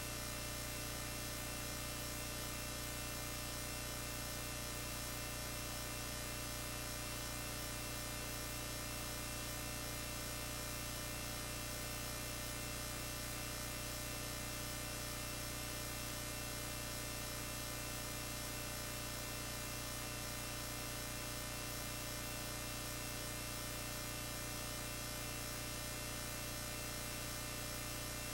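Steady electrical mains hum with a buzz of many overtones and nothing else over it, the empty sound of a silent home-movie film playing through a projector's audio chain.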